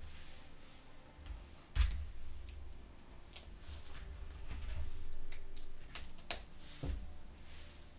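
Small plastic Lego pieces being handled and pressed together, giving scattered sharp clicks and taps, the loudest a quick pair about six seconds in, over soft handling bumps.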